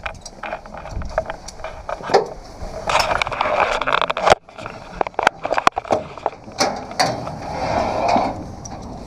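Scattered metallic clicks and clanks from an open lift cage and its metal fittings as it stops at a metal walkway, with two stretches of rustling in between.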